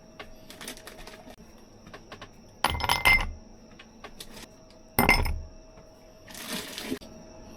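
Hard objects clinking twice, sharply, about three and five seconds in, followed by a short rustle near the end.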